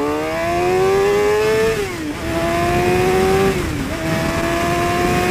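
2015 Suzuki GSX-R 750 inline-four with a Yoshimura R11 exhaust pulling hard under full throttle. The engine note climbs steadily, then drops sharply at an upshift about two seconds in and again about four seconds in, climbing again after each shift.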